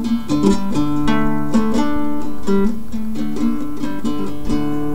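Background music led by an acoustic guitar: plucked notes ringing over held chords.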